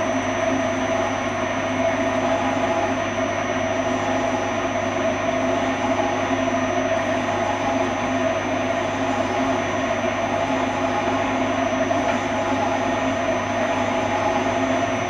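Kearns horizontal boring and facing machine running steadily, its rotating boring bar and facing head cutting the outside diameter of a stator housing, with a faint steady high whine over the machine noise.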